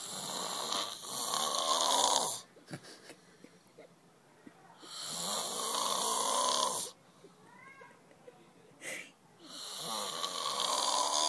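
A person snoring: three long snores, each lasting about two seconds and starting about five seconds apart.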